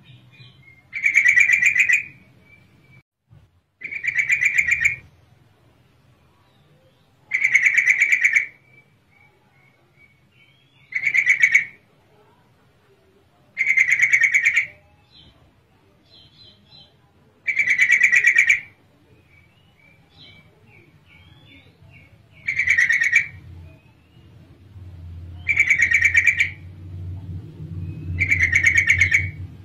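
Yellow-vented bulbul (trucukan) chattering call, said to be a female calling for a male. It comes in loud bursts of rapid repeated notes, each about a second long, repeated every three to four seconds, with faint short chirps in between.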